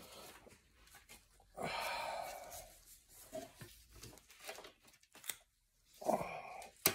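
Faint rubbing and scraping of the Porsche Cayenne's door window glass as it is lifted off its regulator retainers and slid down through the door frame, with a few light clicks and knocks.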